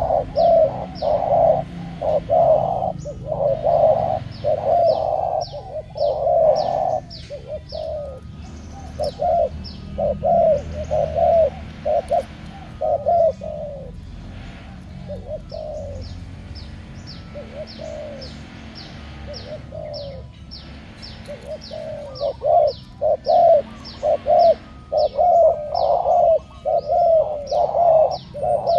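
Spotted doves cooing in quick repeated phrases, two males set against each other in a cooing contest; the cooing thins out about halfway through and comes back dense near the end. Short, sharp high chirps from a smaller bird run throughout.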